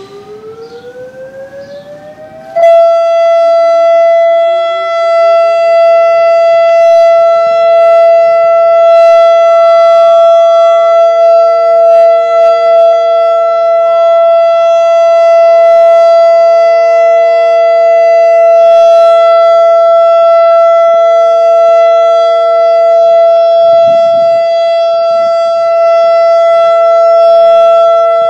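ASC Quadren Q-3200 electronic outdoor warning siren sounding the steady Alert signal. It rises in pitch for about two and a half seconds, then jumps abruptly much louder and holds a steady tone, joined by a lower second tone that slides up and settles a few seconds later.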